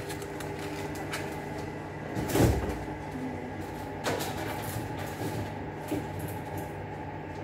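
A kitchen door thudding shut about two and a half seconds in, followed by lighter clicks and knocks, over a steady electrical hum.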